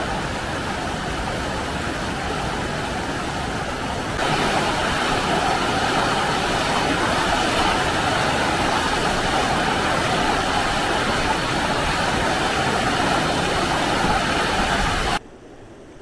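Fast-flowing highland river rushing over rocks in small cascades, a steady rush of white water. It gets louder about four seconds in, then drops abruptly to a fainter rush near the end.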